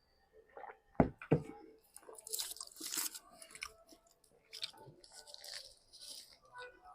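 Close-miked chewing and crunching of food in the mouth, with two sharp thuds about a second in, then a run of crisp crunchy bites and chews.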